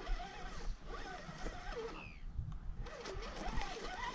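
Spinning reel being cranked, its gears whirring in a pitch that rises and falls with each turn of the handle as a fish that is still pulling is wound in.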